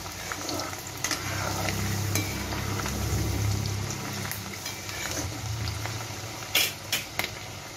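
Chana dal deep-frying in hot oil in a metal kadhai, a steady sizzle as it is stirred with a perforated metal skimmer. The skimmer clinks against the pan a few times near the end.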